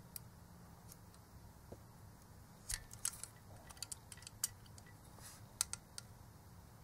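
Precision knife cutting through thick heat-shrink tubing around an LED lamp's driver board: faint, irregular short snicks and scrapes, most of them from about three seconds in.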